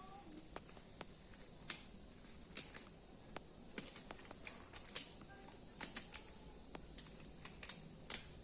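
Irregular light clicks and taps of small objects being handled, some quick runs and a few louder knocks around the middle and near the end.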